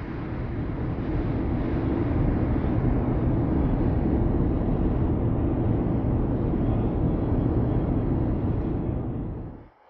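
A steady low rumbling drone that holds level and then fades out quickly near the end.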